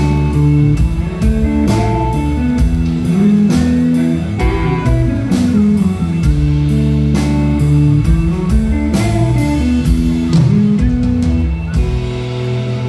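Live instrumental rock: an electric guitar plays a fast melodic line over a drum kit keeping a steady beat. Near the end the band settles on a held chord.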